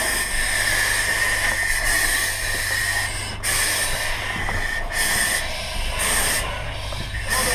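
Pressurised air or vapour hissing loudly and steadily, cutting out briefly every second or two, over a low steady rumble.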